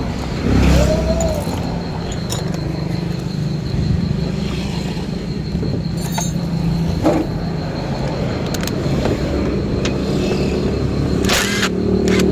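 A car engine idling steadily, with a few short metallic clicks and clinks.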